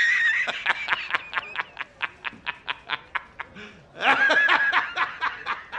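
A man laughing hysterically: quick wheezing pulses of laughter, about five a second, that break into a held high-pitched squeal at the start and again about four seconds in.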